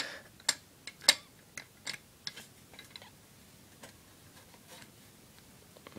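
Light, irregular clicks and taps of a small 1/32-scale model tractor being handled, busier and louder in the first three seconds, then sparse and faint.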